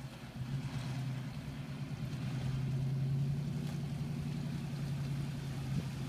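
Nissan Titan pickup's V8 engine running steadily at low revs as the truck crawls through shallow river water, growing louder as it comes closer, with the wash of water around the tyres.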